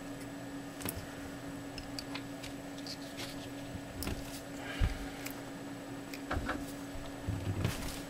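Faint clicks and small knocks of needle-nose pliers squeezing a small plastic squeeze-type crimp connector onto wire leads, several times, the strongest about five seconds in, over a steady low hum.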